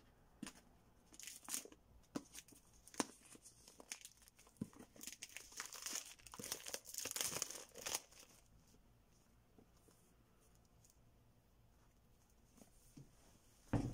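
Plastic shrink-wrap being torn and crinkled off a tablet box: a run of crackles and rips that grows busiest around six to eight seconds in, then stops. A single thump near the end.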